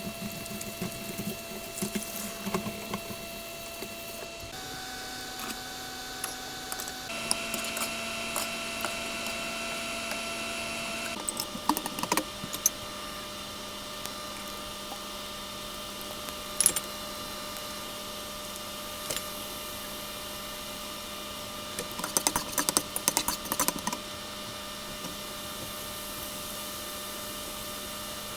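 Kitchen sounds: a steady appliance hum, with scattered light clicks and short clusters of clatter from utensils and dishes.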